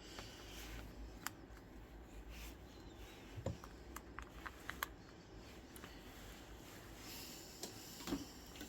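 Faint, scattered clicks and taps of small repair tools, a precision screwdriver and tweezers, on an opened smartphone's internal parts and screws, with a cluster of several clicks in the middle.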